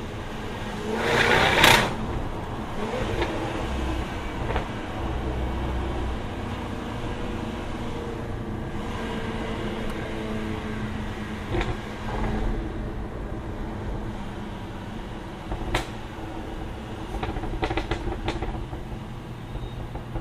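Jaguar F-Type R's supercharged V8 running at fairly steady revs. About a second in there is a loud rushing burst, and near the end a few sharp pops, typical of exhaust crackles.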